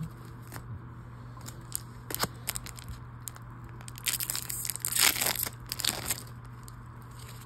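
Plastic wrapper of a trading-card booster pack being torn open and crinkled. A dense crackling tear starts about four seconds in and lasts about two seconds, after a few light clicks.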